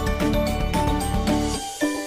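Instrumental background music with a steady beat of pitched notes; the bass drops out near the end, leaving the lighter notes.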